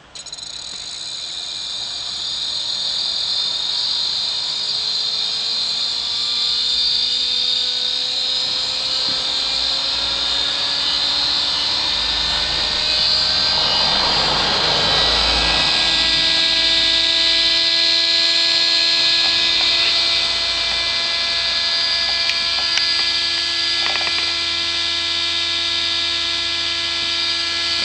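Brushless spindle motor from a hard disk drive, run on a single coil pulsed at 12 V by a power MOSFET that an Arduino switches from a reed-switch sensor. It spins up with a buzzing whine that climbs in pitch for about fifteen seconds, then holds steady.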